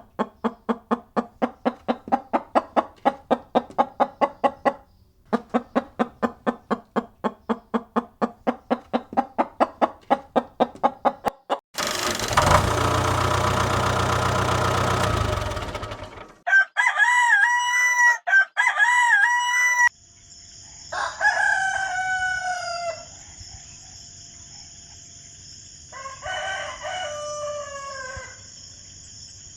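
Chickens: two long bouts of rapid, even clucking at about four a second, then a loud noisy stretch of a few seconds, then rooster crows (two close together, then two more spaced out).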